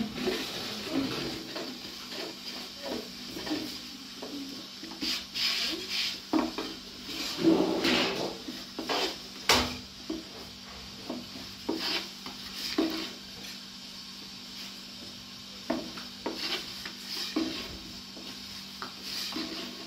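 Long, thin wooden rolling pin working flatbread dough on a wooden board: irregular rolling and rubbing with scattered wooden knocks, the loudest about halfway through. A faint steady low hum runs underneath.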